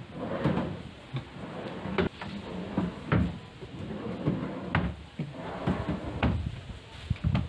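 Drawers of a plywood dresser sliding open and shut on metal drawer slides, with several sharp knocks as they close.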